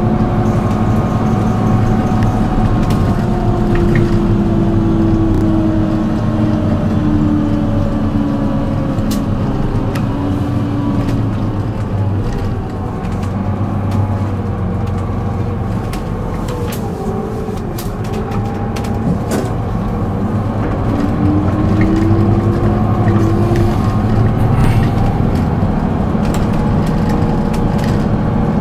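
Solaris Urbino 12 city bus running, heard from inside: a steady low engine drone with a whine that slowly falls as the bus slows and rises again a little after the middle as it picks up speed, with scattered short rattles and clicks from the bus body.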